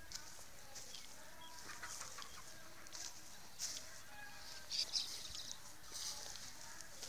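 Scattered short bird calls over a quiet rural background, with the sharpest chirps about three and a half and five seconds in.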